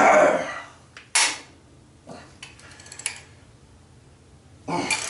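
Loud grunts and forced breaths of effort while head bolts on a Nissan RB25DET are broken loose with a ratchet extended by a pipe, three heaves in all, with light metallic clicks and clinks of the tools between them.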